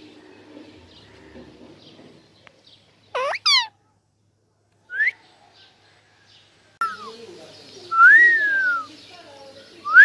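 Alexandrine parakeet whistling: two loud rising whistles about three seconds in and a short rising whistle near five seconds. Later comes a loud whistle that rises and then falls, and another rising whistle at the end.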